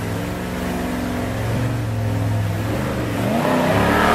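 Rock bouncer buggy's engine running hard under load as it climbs a steep dirt hill, revving higher and louder about three seconds in.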